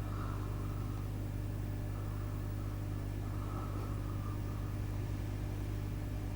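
Steady, unbroken low electrical hum of equipment running, with faint irregular hissy patches over it.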